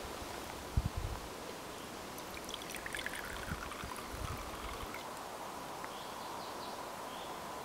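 Kvass trickling through a cloth over a glass jar's mouth into a wooden kuksa cup, a splashing pour that falls in pitch as it goes. A few low thumps of wind on the microphone come about a second in.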